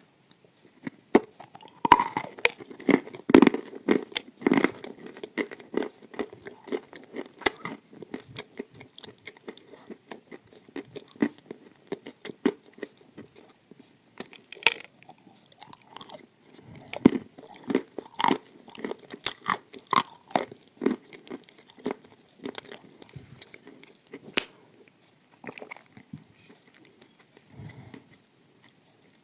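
Close-miked biting and chewing of hard, dry baked clay: sharp crunches and crumbling clicks, heaviest in the first few seconds and again a little past halfway, sparser in between.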